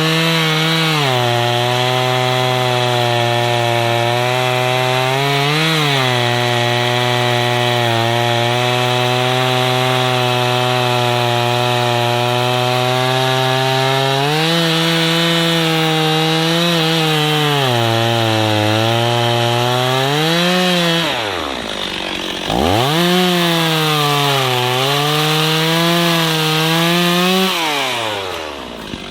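Gas chainsaw running at full throttle and cutting wood, its pitch dipping each time it bogs under load. A little past two-thirds of the way through the revs drop sharply and climb again, and near the end the engine slows as the throttle is released.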